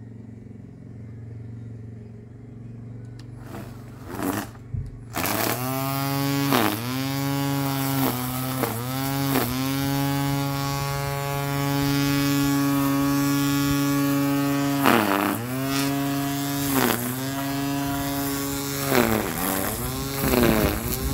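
Battery-powered electric string trimmer starting up about five seconds in and running with a steady whine. Its pitch sags briefly and recovers several times as the cutting line takes load in the grass.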